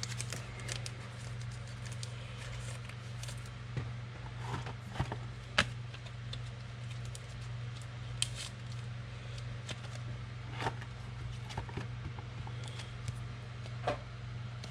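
Trading cards being handled at a table: scattered light clicks and rustles as cards are flipped and sorted, over a steady low hum.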